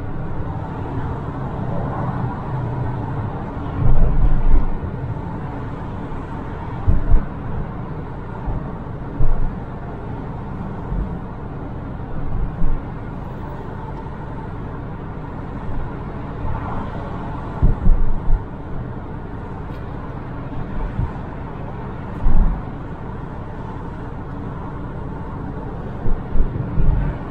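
A car driving along a city street at moderate speed, heard from inside the cabin: a steady rumble of road and running noise, broken by about a dozen short low thumps.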